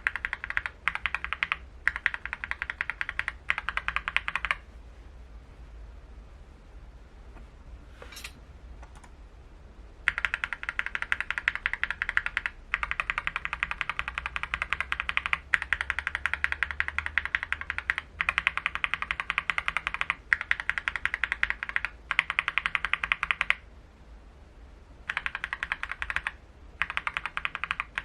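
Fast typing on a mechanical keyboard fitted with Akko linear switches, the keys clacking in dense runs. A long pause about four seconds in is broken by a single keystroke, and there is a shorter pause near the end.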